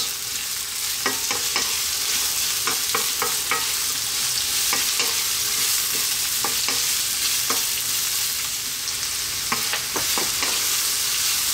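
Sliced onion and carrots sizzling steadily in hot sunflower oil in a wok while being stirred with a wooden spatula, which gives irregular clicks and taps against the pan.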